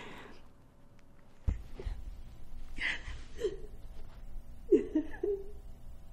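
A person's short non-word vocal sounds: breathing, then a few brief whimpering, gasping noises over a steady low room hum that begins abruptly about a second and a half in.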